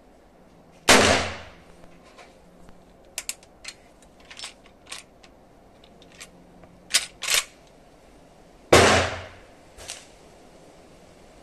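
Two shots from a Winchester 1873 lever-action rifle, about eight seconds apart, each trailing off briefly. Between them comes a run of sharp metallic clicks and clacks as the rifle's action is handled.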